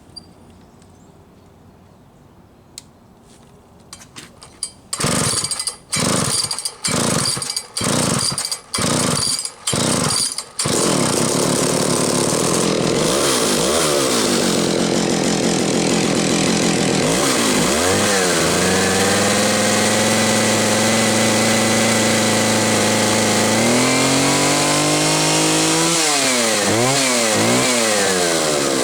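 Homelite 750 two-stroke chainsaw being pull-started: about six short loud firing bursts from about five seconds in, then it catches about ten seconds in and runs, revved up and down several times with a steadier stretch in between.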